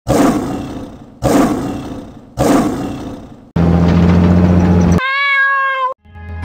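Countdown intro sound effects: three booming hits about a second apart, each dying away, then a low rumbling hum for about a second and a half, then a single clear high tone lasting about a second.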